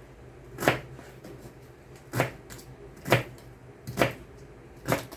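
Kitchen knife chopping celery on a cutting board: five separate chops, roughly a second apart.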